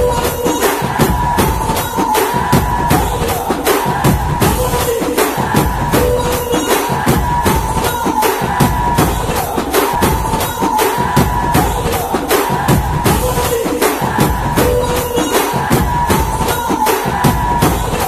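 Background music with a steady drum beat and a repeating melody.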